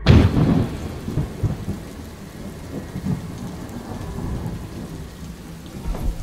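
A thunderclap at the start that rumbles away over about a second, then steady rain with occasional low rumbles of thunder.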